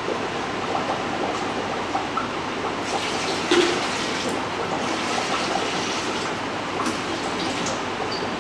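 Water poured from a jug into the stainless-steel hopper of a soft-serve ice cream machine, splashing steadily as the hopper is rinsed, with a single knock about three and a half seconds in.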